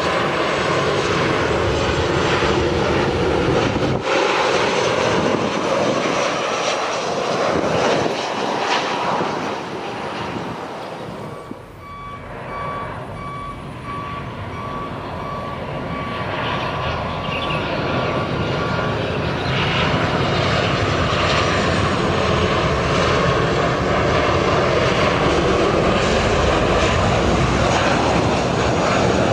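CFM56 turbofan engines of Boeing 737-800 airliners on low final approach, a loud, dense jet rush. About twelve seconds in the sound drops away, then builds again steadily as a second 737 comes in to land.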